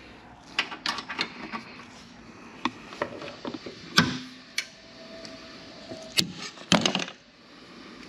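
Hand tools clicking and knocking on metal while the drain plug is worked loose from the back of the sprayer engine's 1:6 gear reducer: irregular single clicks, the loudest about four seconds in with a short ring after it, and a quick cluster of knocks near the end.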